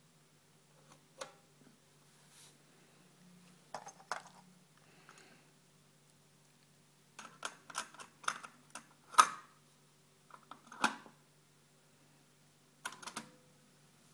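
Alpine AL-80 cassette deck being operated by hand: a run of sharp mechanical clicks and clunks from its transport buttons, the cassette door and the cassette being handled. They come in short clusters, the loudest just after nine seconds in.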